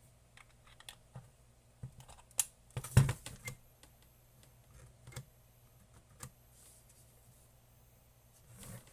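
Scattered clicks and knocks as the platinum thermometer probe's cable connector is handled and plugged back in, with a louder rattling cluster about three seconds in.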